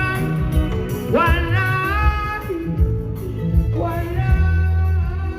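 Music with a sung vocal line that glides up and down in pitch over a heavy bass and guitar backing.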